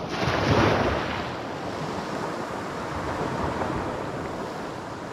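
Sea waves washing on a rocky shore, with wind buffeting the microphone; a louder surge comes about half a second in, then a steady wash.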